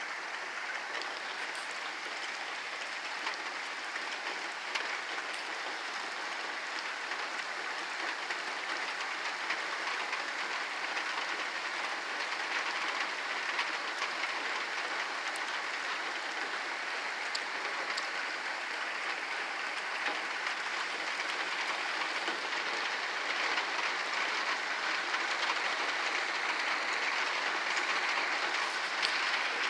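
Heavy rain falling steadily in a thunderstorm downpour, with a few sharp drop ticks, growing a little louder towards the end.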